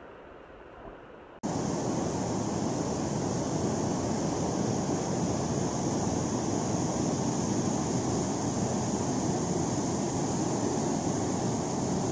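Floodwater rushing in a swollen river, pouring in a steady, loud torrent of white water over rocks. It starts suddenly about a second and a half in, after fainter flowing water from floodwater running through a street.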